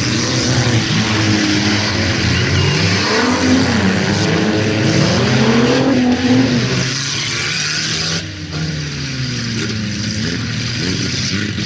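Several stock cars racing on a dirt track, their engines revving up and dropping back in overlapping rising and falling notes as they accelerate through the turn and shift gears. The sound eases slightly about eight seconds in.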